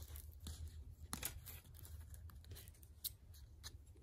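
Faint rustling and scraping of sewing thread being drawn through the paper pages of a hand-sewn Coptic-bound book, with a few short clicks and paper handling noises as the stitch is finished off.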